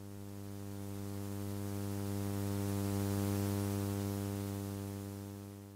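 Electrical mains hum with buzzing overtones from the idle hi-fi audio chain after the music is paused. It swells slowly louder and then fades out near the end.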